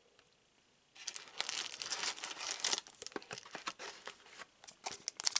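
Foil wrapper of a trading-card booster pack crinkling and tearing as it is handled and opened, starting about a second in as a dense run of quick crackles.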